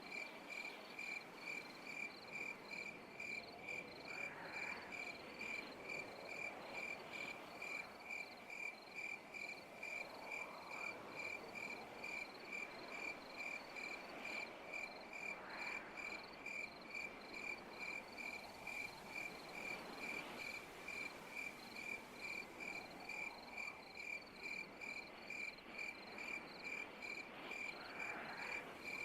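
Night insect ambience: a cricket chirping steadily at about two chirps a second, with a faint background hiss of other night insects that swells softly now and then.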